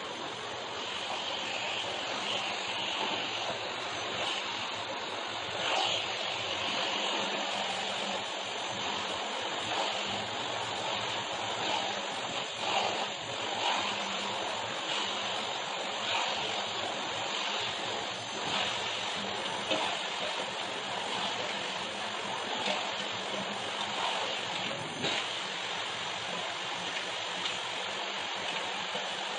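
Canister vacuum cleaner running steadily as its nozzle is pushed across a shag rug. The level swells a little now and then as the nozzle moves.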